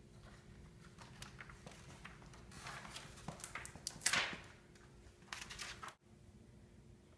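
Rustling and small knocks of a person shifting and handling a sheet of paper, busiest in the middle, with a louder rush of noise about four seconds in.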